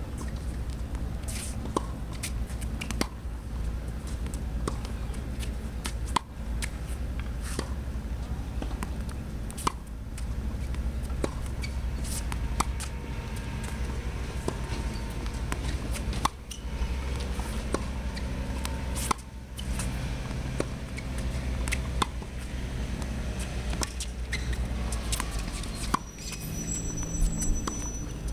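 Tennis ball hit by a racket and bouncing on a hard court: sharp pops every second or two in an uneven rally rhythm, over a steady low background rumble.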